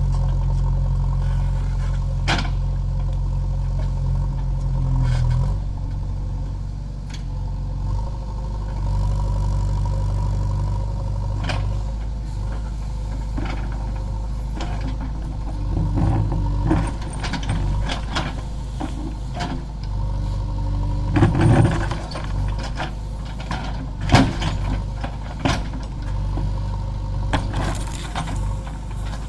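JCB 3DX backhoe loader's diesel engine running steadily, its note dropping about five seconds in, with scattered sharp metallic clanks from the working bucket and arm, loudest about three-quarters of the way through.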